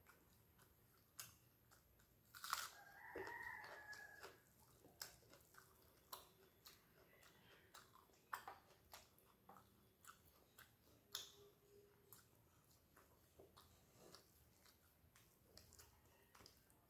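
Close-miked eating sounds: chewing rice and fish, with soft scattered mouth clicks and fingers working rice on a steel plate. A brief, louder pitched sound comes about two and a half seconds in.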